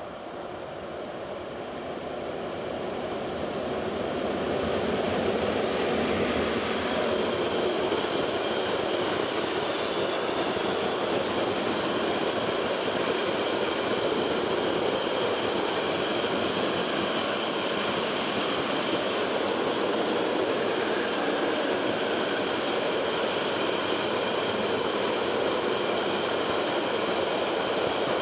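Freight train of enclosed double-deck car-carrier wagons, hauled by a Siemens Taurus class 182 electric locomotive, rolling past: a steady rumble of wheels on rails that builds over the first few seconds as the train arrives, then holds, with faint high-pitched tones over it.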